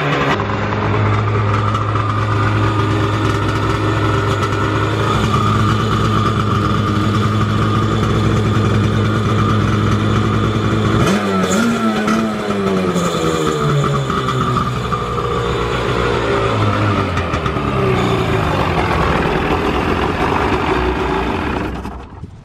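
Sea-Doo 787 two-stroke twin engine of a home-built jet boat running on its first test start, mostly at a steady fast idle, revved and let back down a couple of times. It shuts off near the end.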